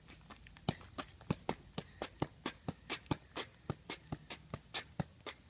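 A football juggled on the foot: a run of short, sharp taps, about four a second, as the ball is kicked up again and again during a double around-the-world freestyle trick.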